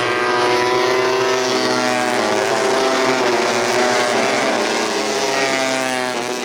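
Engines of 150cc four-stroke underbone racing motorcycles running at high revs, several at once, their pitch rising and falling as the riders work the throttles.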